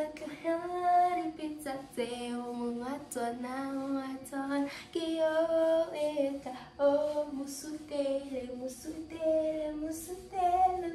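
A young woman singing a melody unaccompanied, in held notes and short phrases with brief pauses between them.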